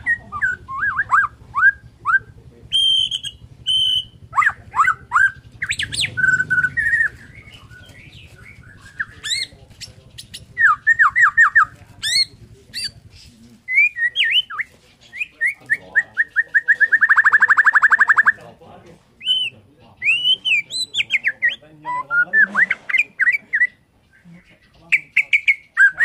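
Bornean white-rumped shama (murai batu) singing: a varied run of loud whistled phrases and quick sweeping notes, with a long, fast rattle of repeated notes past the middle.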